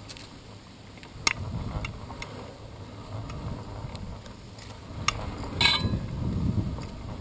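Riding noise from a road bicycle picked up by a handlebar-mounted camera: a low rumble of wind and road, with a few sharp clicks and rattles from the bike and mount. The loudest is a short clatter about five and a half seconds in.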